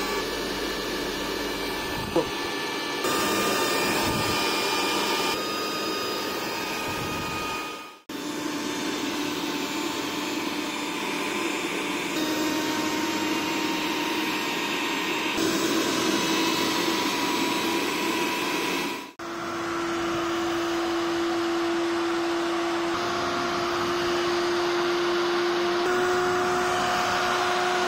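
Mixer-grinder motors running at no load with no jar fitted, a steady high whine at roughly 17,500 to 21,600 rpm. Three machines (500 W, 900 W and 1200 W) are heard in turn, with two brief breaks where one gives way to the next. Within each, the pitch steps up once or twice as the knob is turned from speed 1 to speed 3.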